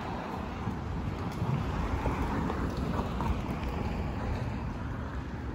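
Street ambience: wind rumbling on the microphone over a steady hum of traffic, swelling a little midway.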